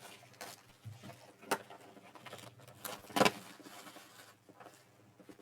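Light handling noises: a few short knocks and rustles, the strongest about one and a half and three seconds in, as trading-card packs and a cardboard box are handled.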